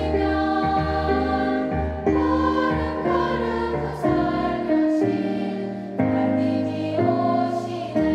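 Children's choir singing together over instrumental accompaniment, holding long notes that change roughly once a second.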